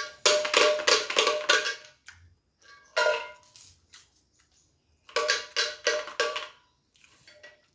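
Coins rattling inside a cylindrical coin bank as a small child shakes it, in three bursts of quick rattles with short silent gaps between.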